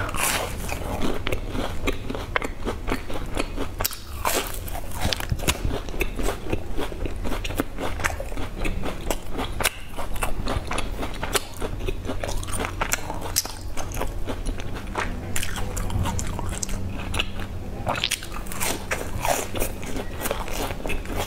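A person biting into and chewing crisp round sandwich biscuits, picked up close on a lapel microphone: a dense, irregular run of sharp crunches with chewing in between.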